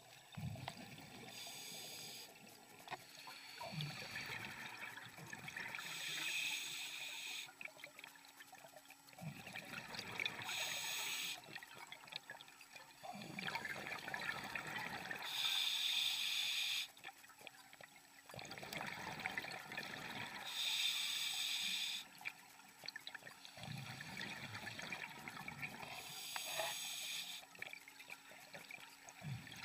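Scuba diver breathing underwater through a demand regulator: a hissing inhale, then a bubbling rush of exhaled air. The cycle repeats about six times, roughly once every five seconds.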